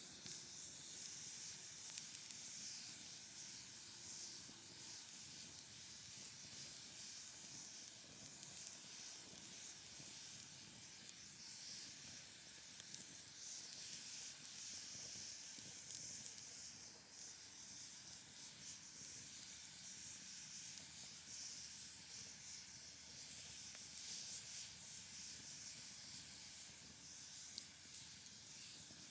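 Firewood burning in a folding fire pit: a steady hiss with occasional faint crackles.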